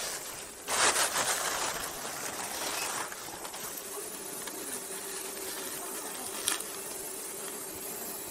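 Plastic sheeting rustling as loose pu'er tea is scooped into a tin cup and handled for weighing, loudest about a second in. A faint steady hum runs under it in the middle, and there is a short click later on.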